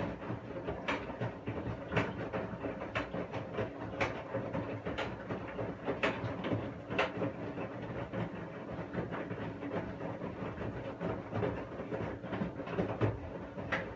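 Washing machine running, its drum turning the load with a steady rumble and a regular click about once a second.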